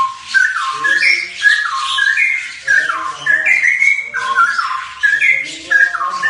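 Bali starlings calling: short whistled and harsh notes that step up and down in pitch, repeated several times a second and overlapping with no break.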